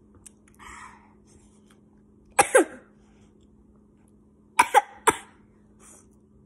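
A person coughing: a sharp double cough about two and a half seconds in, then a quick run of three coughs around the five-second mark.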